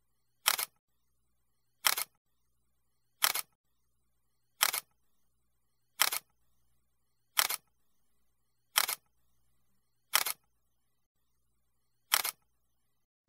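Camera shutter click sound effect, repeated nine times about every second and a half, each a quick double click, with silence between.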